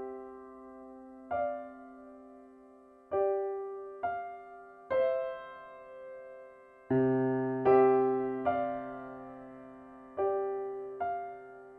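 Solo piano playing slow, sparse chords, each struck and left to ring and fade before the next, one every second or two. A deeper bass note joins about seven seconds in.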